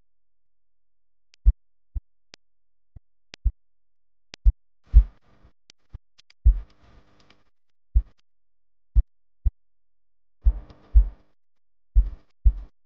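Background music with sparse, punchy drum hits spaced about half a second or a second apart, some followed by a brief noisy wash, and silence between the hits.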